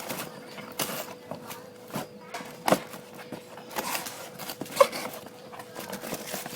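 Clatter of ice-cream packs and cardboard boxes being handled: scattered light knocks and rustles, with two sharper knocks near the middle, over a faint steady hum.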